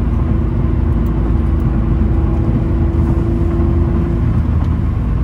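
Infiniti G35's VQ35DE 3.5-litre V6 running under way, heard from inside the cabin: a constant low drone with a steady engine tone held at one pitch until about four seconds in, when the tone ends as the driver changes gear.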